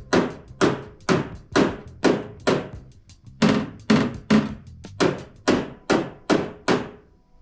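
Body hammer tapping lightly on a steel car trunk lid over a dolly, about two even strikes a second, each with a short metallic ring. This is hammer-and-dolly dent work: the ring of each tap shows whether the blow lands over the dolly, where it sounds tinny.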